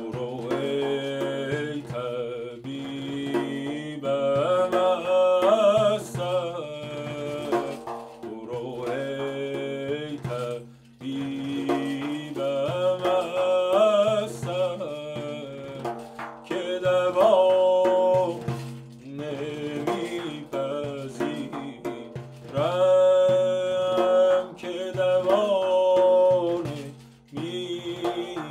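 Male voice singing a Persian tasnif in Homayoun in ornamented phrases a few seconds long, accompanied by his own dayereh frame drum struck with the fingers.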